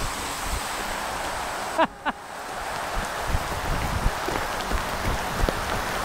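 Heavy thunderstorm rain falling, a steady hiss, with scattered low thumps and a brief dropout about two seconds in.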